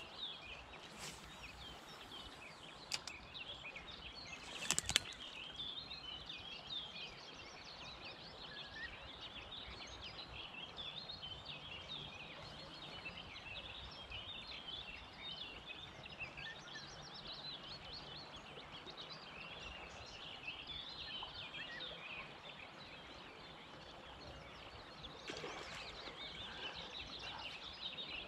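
Many small songbirds singing together in a steady chorus of chirps and trills, with a few sharp clicks in the first five seconds.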